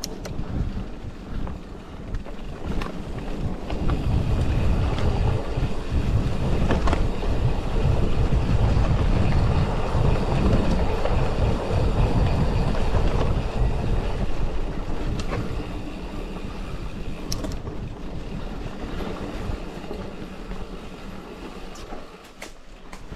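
Wind buffeting the microphone while riding a mountain bike, with a low rumble of tyres rolling over a dirt track and a few light clicks and rattles. Louder through the middle, easing off in the last several seconds.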